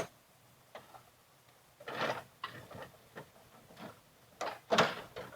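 A series of separate knocks and clatters as lawn tractor hood parts and a guard are handled and hooked into place, the loudest a little before the end.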